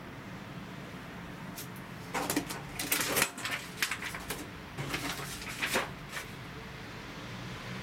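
A sheet of paper rustling and crackling as it is handled and opened out, in a flurry of crisp bursts over about four seconds, loudest about three seconds in. Under it runs the steady hum of the standing tram's cab.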